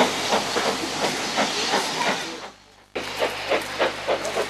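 BR Standard Class 4 4-6-0 steam locomotive pulling away, with evenly spaced exhaust chuffs about four a second over steady steam hiss from the cylinders. The sound dips out for a moment about two and a half seconds in, then the chuffing resumes.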